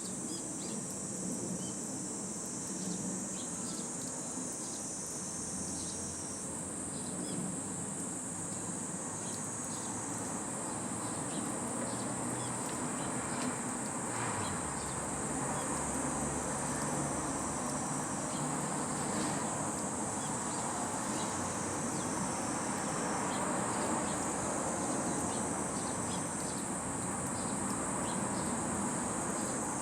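Cicadas shrilling in a steady high drone that swells and dips every few seconds, with short faint chirps of sparrows scattered through it.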